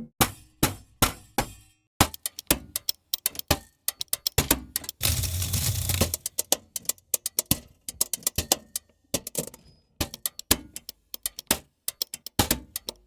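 Old cash register mechanism: a quick series of sharp clicks and clunks with short pauses between, and a denser rattling run lasting about a second around five seconds in.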